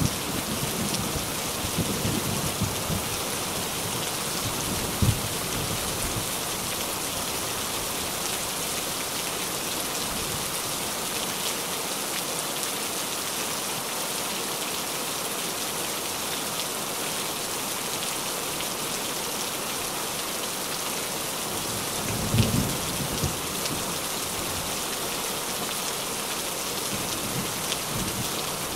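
Rain falling steadily on a tin roof, an even patter, with low rumbles of thunder at the start and again about 22 seconds in.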